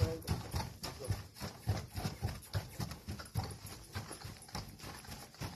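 A horse's hooves thud on packed dirt as it prances in place, in a steady rhythm of about three steps a second.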